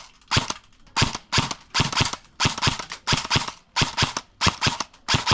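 Front-wired electric airsoft rifle (M4/M16-style AEG on a 9.6 V battery) firing single shots on semi-auto: a steady string of sharp clacks, two or three a second.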